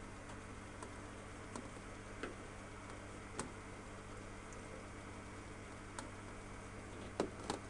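Scattered light clicks and taps as a corrugated plastic hose knocks against the perforated stainless-steel drum of a top-loading washing machine, the loudest two close together near the end, over a steady low hum.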